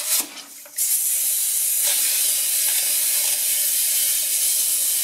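Air hissing out of a leak in an inflated inner tube being squeezed underwater in a bucket: a healthy leak. A short burst comes first, then a steady hiss from about a second in that cuts off suddenly at the end.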